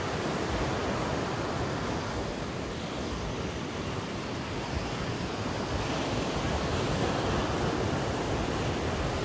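Ocean surf breaking and washing up a sand beach, a steady rush that swells slightly about two-thirds of the way through, with wind rumbling on the microphone underneath.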